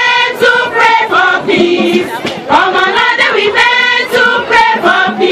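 A group of women singing a Wimbum traditional dance song together in a chant-like call, with short sharp beats sounding throughout.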